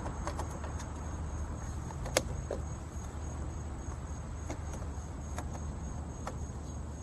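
Small scattered clicks and taps of hands and a screwdriver working on a motorcycle turn-signal housing as its screw and lens come off, with one sharp click about two seconds in. Underneath are a steady low hum and a faint steady high tone.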